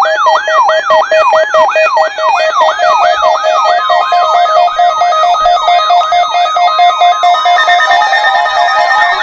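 Several NOAA weather radios sounding their alert alarms together for a Required Weekly Test. A siren-like chirp falls in pitch over and over, about two and a half times a second, over steady pulsing beeps at several pitches.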